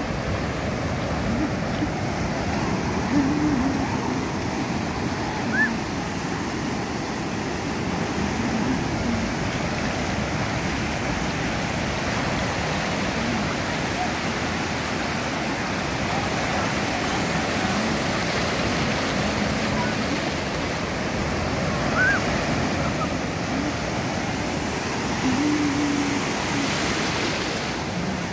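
Ocean surf breaking and washing up the beach, a steady rush of waves. A few brief far-off shouts rise above it now and then.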